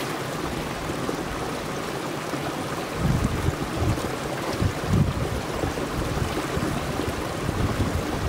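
Glacial meltwater stream running over rocks, a steady rush of water. From about three seconds in, gusts of wind buffet the microphone.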